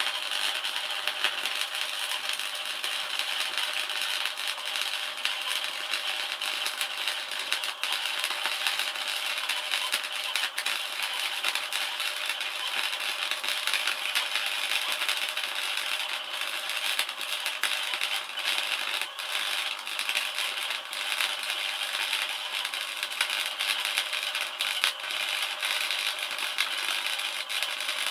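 MIG welding arc crackling continuously as a weld is run, a fast, dense, even crackle with no breaks.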